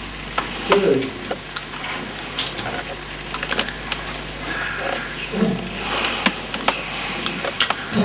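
Domestic pigeons giving short coos, once about a second in and again past the middle, among scattered sharp clicks and knocks.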